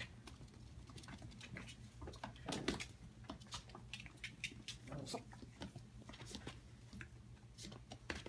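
Whippet puppies' paws pattering and claws clicking on a tile floor and a dog bed, faint scattered taps with a few soft scuffles.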